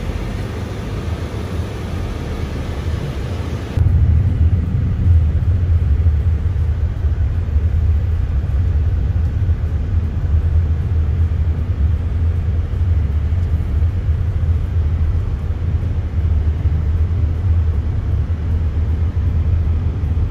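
Steady low rumble of a moving car, road and engine noise. About four seconds in the sound changes abruptly: the hiss drops away and the low rumble gets louder.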